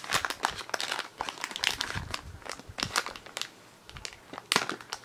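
Product packaging being handled and opened, crinkling and crackling irregularly, with one sharper, louder crackle a little after four and a half seconds.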